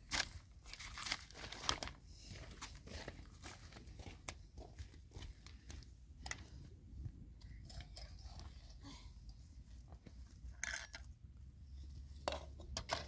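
Irregular rustling and crunching with scattered sharp clicks, and a louder crackle about ten and a half seconds in.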